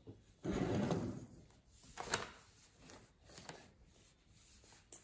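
Arms and hands shifting on a wooden table: a rubbing, scraping shuffle for nearly a second, then three light knocks spaced over the next few seconds.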